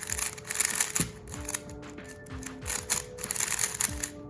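Swift Block 355s plastic speedcube being turned rapidly by hand, its layers clicking in quick runs of turns.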